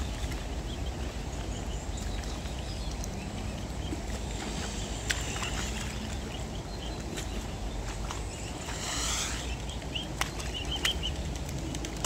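Mute swans and their cygnets feeding at the water's edge: short high peeping calls and scattered sharp pecks or clicks, with a brief rushing sound about nine seconds in, over a steady low background rumble.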